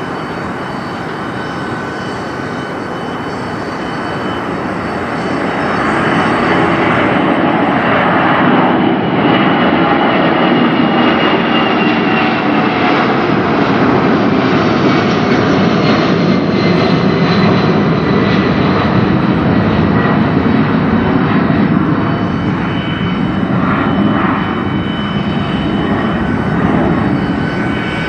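Boeing 757-200 jetliner's twin jet engines at takeoff power, growing louder about six seconds in as it climbs out and passes close overhead. A high whine slides down in pitch as it goes by, and the noise eases slightly as it climbs away.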